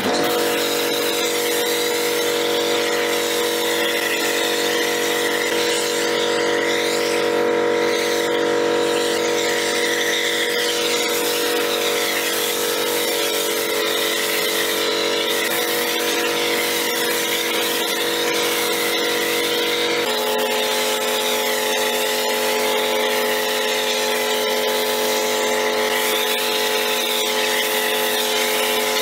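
Pressure washer running with a foam lance spraying snow foam: a steady motor hum under a hiss of spray. The hum changes abruptly about two-thirds of the way through.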